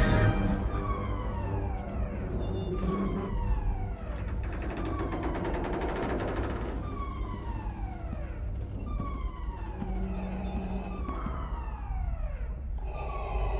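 Starship alarm sounding a falling whoop over and over, about once every second and a quarter, over a steady low rumble. A stretch of crackling noise runs through the middle.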